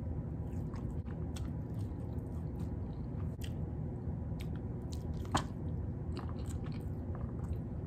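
Close-up mouth sounds of someone eating buttered crab leg meat: wet chewing and lip-smacking with soft, irregular mouth clicks, one louder click about five seconds in, over a steady low hum.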